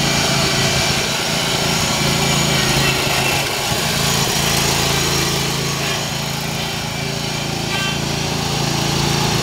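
John Deere 285 lawn tractor's engine running steadily as the tractor drives, a little quieter partway through and louder again near the end.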